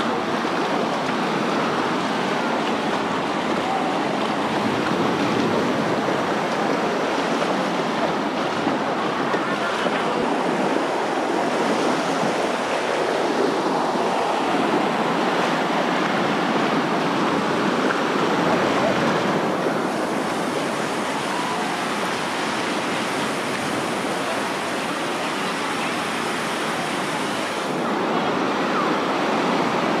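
Small waves breaking and washing up a sandy beach at the water's edge, a steady wash of surf.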